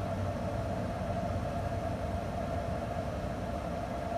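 Pellet grill's combustion fan running steadily while the grill heats toward its set temperature: a constant whir with a low hum underneath.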